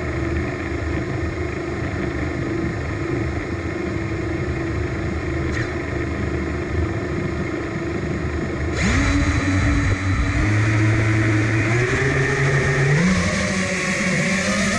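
FPV quadcopter's brushless motors and propellers spinning with a steady hum, then throttled up sharply about nine seconds in, their whine climbing in steps twice toward the end.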